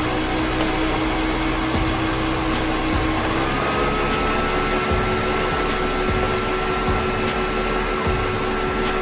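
Kitchen blender running steadily, puréeing chilies and spices for a birria sauce. About three and a half seconds in, its motor whine steps up slightly in pitch and holds there.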